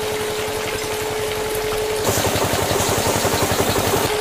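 Small DC water pump whining steadily at a single pitch, with spraying water hissing over a toy tractor. About halfway through, the whine gives way to a louder, rapid pulsing rattle with more hiss, at about a dozen pulses a second.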